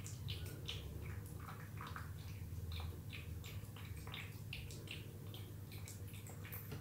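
A cat lapping and eating watered-down wet food: quick, small wet licking and smacking sounds, several a second, over a steady low hum.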